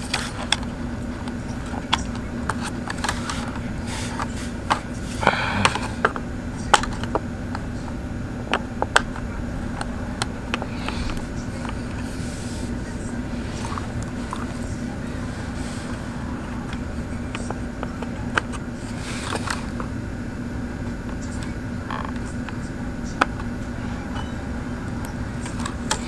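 A steady low hum of room tone with scattered small clicks and taps of handling, and a couple of brief louder rustling noises about five and nineteen seconds in.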